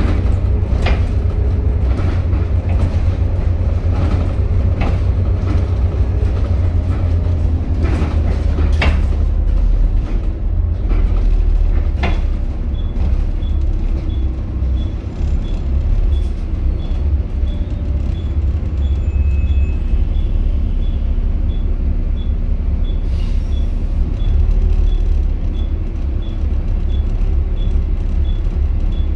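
Inside a Volvo B7TL double-decker bus on the move: the six-cylinder diesel's low, steady rumble, with bodywork and seat rattles and knocks over roughly the first twelve seconds. After that comes a light, regular tick about one and a half times a second.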